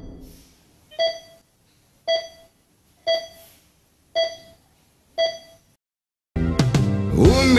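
Five electronic heart-monitor beeps, about one a second, each a short tone that dies away quickly. About six and a half seconds in, music starts suddenly.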